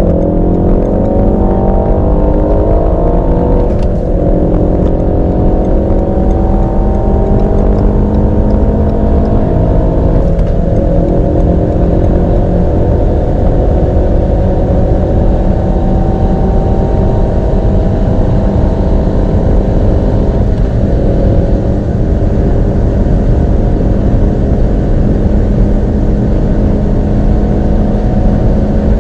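Turbocharged four-cylinder hot-hatch engine under full-throttle acceleration at high speed, its pitch climbing slowly through each gear. Upshifts come about 4, 10 and 20 seconds in, each a brief drop in pitch before the climb resumes.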